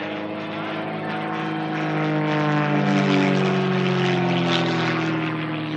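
Pitts aerobatic biplane's propeller engine passing by: the drone swells to its loudest about three seconds in, its pitch sliding down slightly as it goes past, then fades a little.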